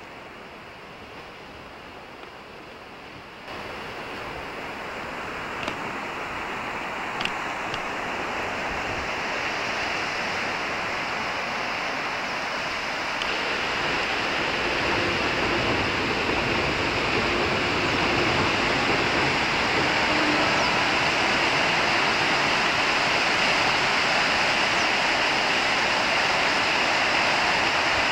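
Steady rushing noise of sea surf on the shore, growing louder over the first half and then holding level, with a couple of faint clicks in the first third.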